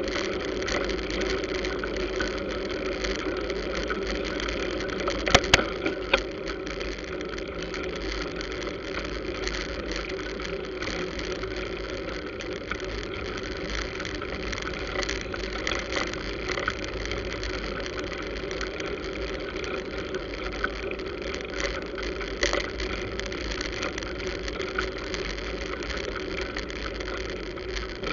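Busy road traffic: motor scooter and car engines running steadily close by, with a couple of sharp knocks about five seconds in.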